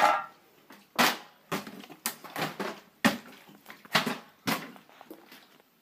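Plastic water bottles being flipped and landing, a string of about eight separate knocks roughly half a second apart.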